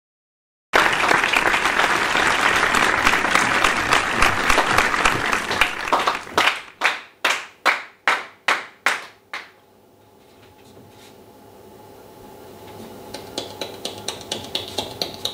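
Audience applause, thinning into about eight loud single claps in an even, slowing rhythm. Then a quiet moment, and faint music with light ticking starts to come in near the end.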